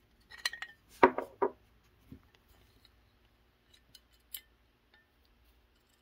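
Small brass safe-lock parts, the beehive wheel and its gear, clicking and clinking as they are turned and handled: a cluster of clicks in the first second and a half, then a few faint ticks.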